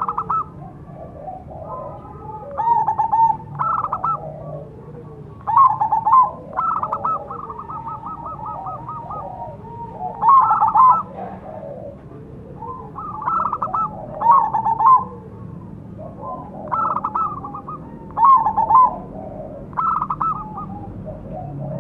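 Zebra dove (perkutut) of the crossbred Bangkok type singing: loud bursts of quick, rolling cooing notes every two to three seconds, with a longer even trill about a third of the way in. Fainter, lower calls come between the bursts.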